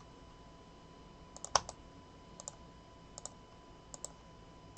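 Light clicking at a computer, in small groups of two or three clicks about once a second, the loudest group about one and a half seconds in, over a faint steady tone.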